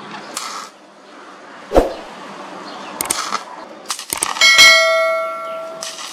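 A few quick clicks and then a bell ding that rings and fades over about a second and a half, the sound effect of a subscribe-button animation. Before it there are a single sharp knock and short bursts of stick-welding arc crackle.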